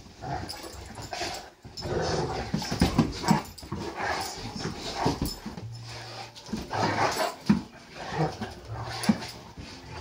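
Two Great Danes play-fighting, with play growls and grunts coming in irregular bursts, and knocks of paws and bodies against the sofa.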